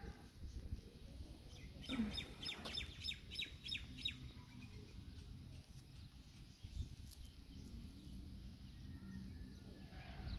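A bird chirping a quick run of about ten short, high notes lasting about two seconds, a couple of seconds in, over a low background rumble.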